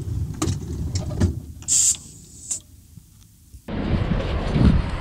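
A few clicks over a low rumble in a stopped truck's cab, then a short sharp hiss of compressed air about two seconds in. After an abrupt cut near the end, wind rumbles and buffets on the microphone.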